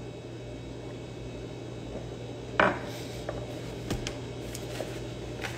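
A ceramic mug set down on a desk with one sharp knock about two and a half seconds in, followed by a few small clicks and light rustling as the pages of a paperback book are handled, over a steady low hum.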